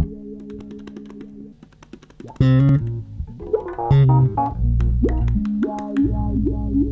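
Instrumental opening theme music. A quieter passage of held notes gives way about two and a half seconds in to a louder section with a deep bass line and sliding notes over it.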